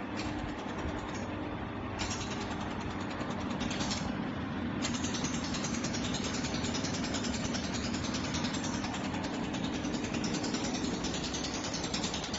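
Jewellery laser welding machine firing a rapid train of pulses, heard as fast, even clicking that starts and stops in short runs for the first few seconds and then runs on without a break. Under it is a steady low hum from the running machine.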